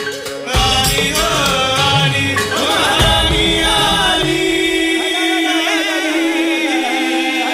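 Indian film song music: a wavering, ornamented melody line over drums and bass. The beat drops out about five seconds in, leaving a held drone under the melody.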